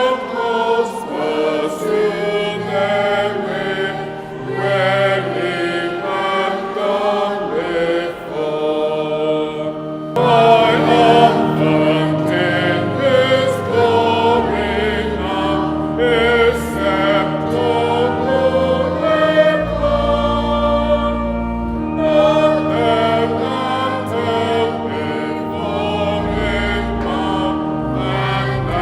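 Church choir singing a hymn in several voice parts, with organ accompaniment; deep sustained bass notes come in about ten seconds in.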